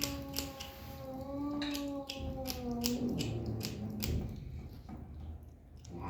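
Kitten eating, with quick crunchy chewing clicks. For the first three seconds or so, a drawn-out, humming sound of pleasure comes from the kitten as it eats.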